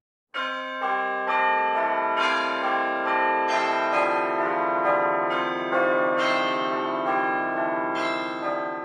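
Church bells ringing a quick peal of overlapping strikes, about two to three a second, starting just after a moment of silence and fading near the end.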